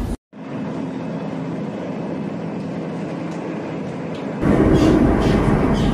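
Running noise of an electric commuter train, a steady rumble and rush. It cuts out briefly right at the start, then comes back and grows noticeably louder about four seconds in.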